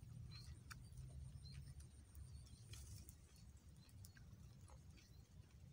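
Near silence: quiet outdoor ambience with a low rumble, a few faint ticks and short high chirps.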